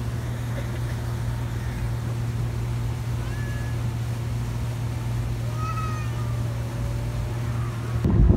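Motorboat engine running with a steady low hum, with a few short high calls that glide in pitch around the middle. Just before the end the sound cuts to louder wind and water noise.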